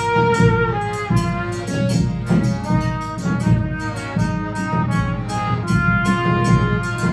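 Chindon band playing a tune: a trumpet carries the melody over an accordion, with a steady beat from the big bass drum and the chindon drum rig.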